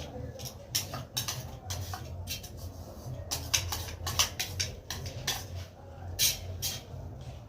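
Cooking sounds: irregular sharp clicks and knocks, a few a second with several louder ones, over a steady low hum.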